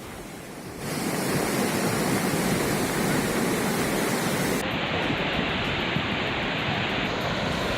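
Floodwater rushing in a swollen river, a steady noise that grows louder about a second in and turns duller past halfway.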